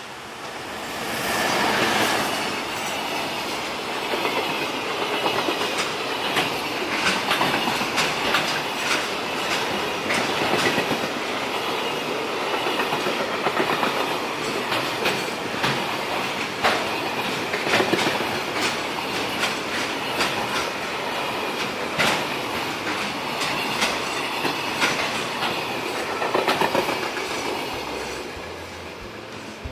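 Freight train passing close by, its wagons' wheels clacking over the rail joints in a long, uneven run of clicks. The sound swells in about two seconds in and fades near the end.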